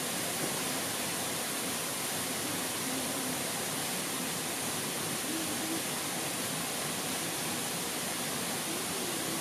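Water pouring over a small concrete weir, a steady, even rush.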